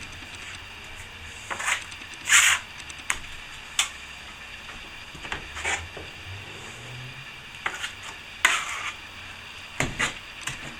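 Plastering trowel scraping plaster on the hawk and across the ceiling patch in short strokes every second or two, the loudest about two and a half seconds in.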